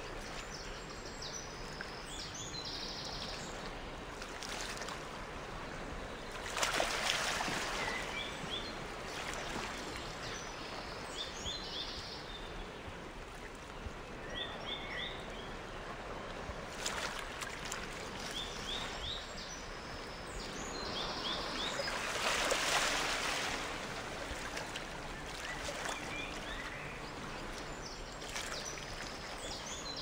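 Steady gurgling stream with short bird chirps scattered through it. The water noise swells louder twice for a couple of seconds, about a fifth of the way in and again about three-quarters through.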